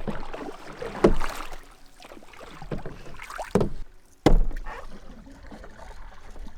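Canoe on a river: paddling and water noise, with three sharp thumps about a second, three and a half and four and a quarter seconds in, typical of a paddle knocking against the canoe's hull.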